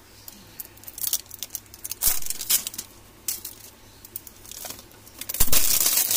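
A metal aerosol can being handled, with scattered clicks and light knocks, then loud crinkling of a clear plastic bag near the end.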